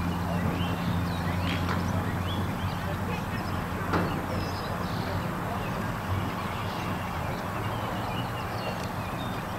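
Outdoor ambience: scattered short bird chirps over a steady low hum, with faint distant voices.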